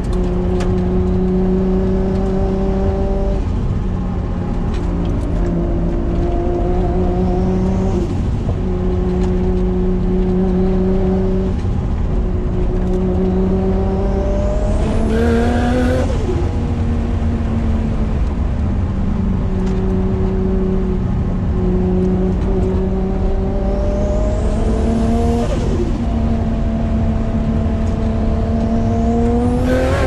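Nissan Skyline R33's built RB25DET turbocharged straight-six pulling steadily, heard from inside the cabin. Its revs climb about halfway through and again a few seconds later, with a high rising whine, and drop suddenly each time the throttle is lifted. Near the end it climbs once more.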